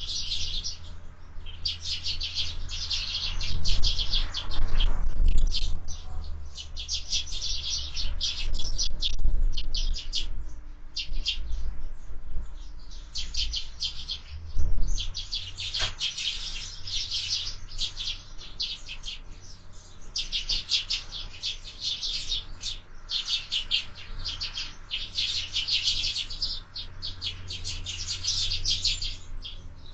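Sparrows chirping in a busy, nearly continuous chorus, over a low rumble of wind on the microphone.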